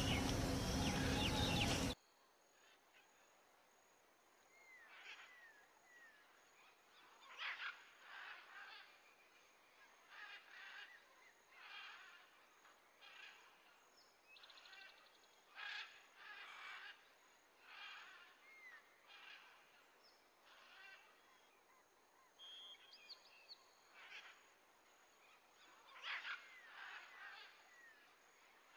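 A louder stretch of sound cuts off suddenly about two seconds in. After that it is very quiet, with faint short bird calls now and then: a few small falling chirps and brief honk-like calls.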